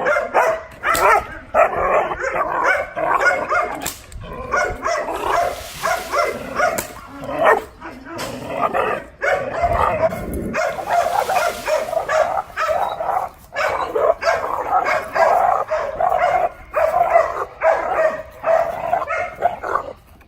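Six-month-old Dutch Shepherd puppy barking repeatedly in quick, dense volleys, the aggressive barking of civil protection training.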